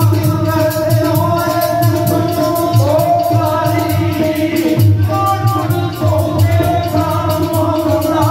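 Live music played through a PA system: a man singing over a steady, repeating drum beat.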